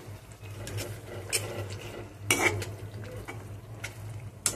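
A perforated steel spoon scrapes and clinks against a metal kadhai while a tomato and curd masala is stirred as it fries in oil, with a light sizzle underneath. There are a few sharper scrapes, one about a second and a half in and the loudest about two seconds in, and another at the very end.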